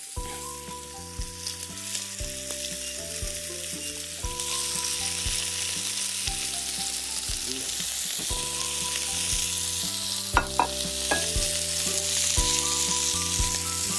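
Diced turkey breast sizzling in hot oil in a frying pan. The sizzle grows louder about four seconds in, with a few light clicks near the end.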